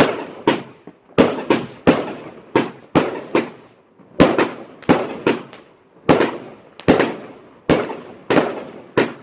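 A 100-shot 25 mm firework cake firing a rapid string of sharp bangs, roughly two a second at uneven spacing. Each bang trails off in a long echo.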